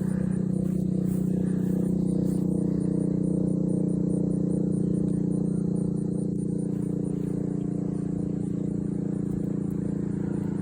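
Federal Signal STH-10 rotating siren coasting down after a test. It holds a low, steady chord at a solid pitch, fading only slightly and still not coming to a stop.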